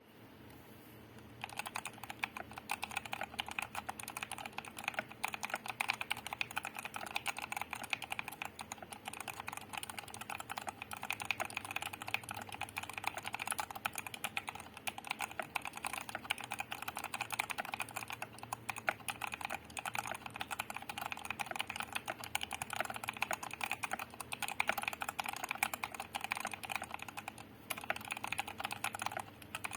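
Fast, continuous typing on a Koodo Gecko mechanical keyboard with Krytox 205g0-lubed Outemu Brown tactile switches, dampened by case foam, a tape mod and a silicone case dampener. The typing starts about a second and a half in and pauses briefly near the end.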